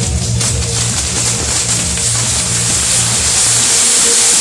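Ground fireworks, catherine wheels and spark fountains on a firework frame, hissing loudly in a dense spray of sparks, the hiss growing stronger toward the end. A few sharp crackles come in the first half-second, over a low steady hum.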